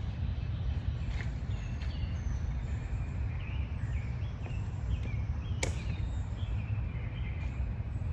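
Garden ambience: a steady low rumble of breeze with many short, faint bird chirps scattered through, and one sharp click about five and a half seconds in.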